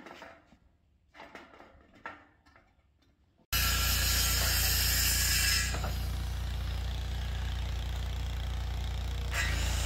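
Faint clicks, then about three and a half seconds in a circular saw starts abruptly and runs loud and steady, cutting into lumber. Its sound is harsh and bright at first, eases a little, then turns harsh again near the end.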